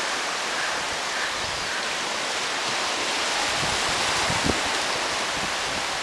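Steady rushing of shallow surf washing over sand, mixed with wind, with a few low gusts buffeting the microphone a little after halfway.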